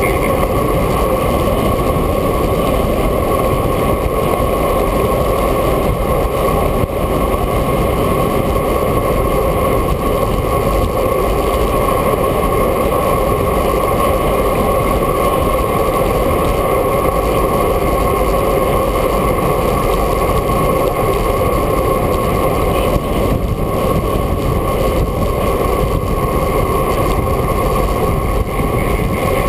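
Steady, loud rushing of wind on a bicycle's handlebar-mounted action camera as the road bike rolls along at speed, with a constant drone underneath.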